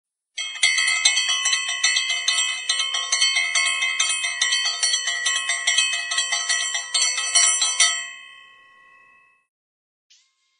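Intro jingle of rapidly struck, bright bells, many pitches ringing together. They stop about eight seconds in and the last notes ring out and fade.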